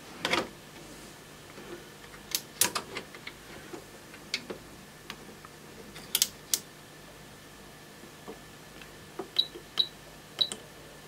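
Scattered sharp clicks of an Advantest R6581T multimeter's front-panel push-buttons being pressed as it is brought up into its diagnostic test mode. Three short high beeps come about three-quarters of the way in, with a faint steady electronic hum underneath.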